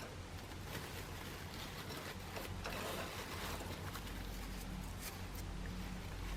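Faint rustling and light tapping of a pet Java sparrow moving about, with a few small clicks and a slightly louder scratchy rustle about three seconds in.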